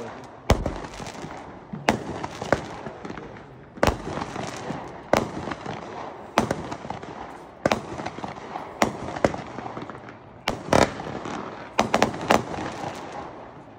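A 25-shot consumer firework cake firing in sequence: a sharp report about every second or so, with crackling between the shots, and a quick cluster of bangs near the end.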